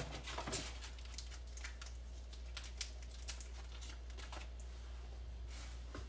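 Plastic food packaging being handled while raw pork belly slices are peeled off it: irregular light clicks and crinkles, over a steady low hum.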